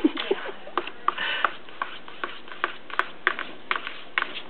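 A cat's paw and claws tapping and scratching against a flat-screen computer monitor while batting at screensaver bubbles: irregular sharp taps, a few a second, with a short scratchy rub about a second in.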